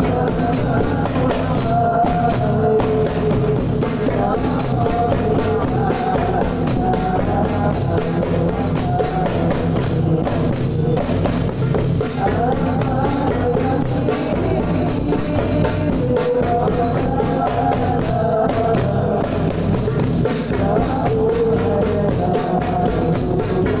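Hand drums played together in a steady, fast rhythm, with a wavering melody line above them.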